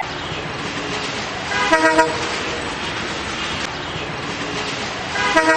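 Two short car horn honks about three and a half seconds apart, over a steady rush of street traffic noise.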